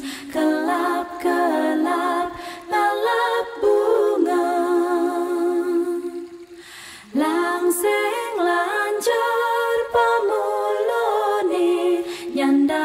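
A cappella vocal music: voices singing and humming without instruments, with a short lull about six seconds in.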